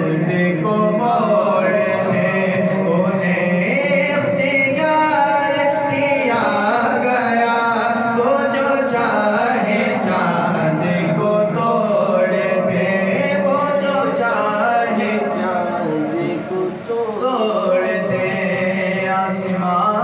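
A man singing a naat, an Urdu devotional song in praise of the Prophet, solo into a microphone in continuous melodic phrases.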